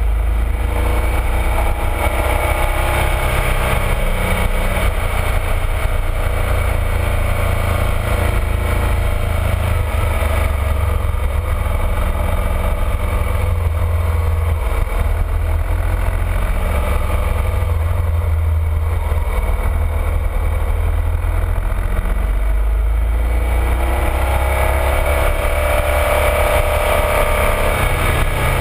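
BMW R1200RT's boxer-twin engine under way on the motorcycle. Its pitch rises and falls as the rider accelerates and eases off through the bends, over a steady low rumble.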